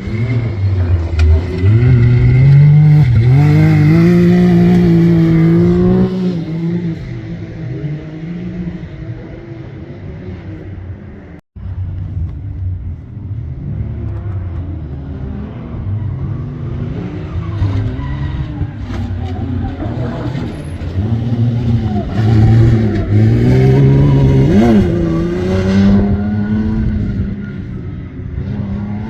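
Competition safari off-road racing vehicle's engine revving hard, its pitch rising and falling as it is driven through the course, loudest in the first few seconds and again about two-thirds of the way through. A momentary cut in the sound about eleven seconds in.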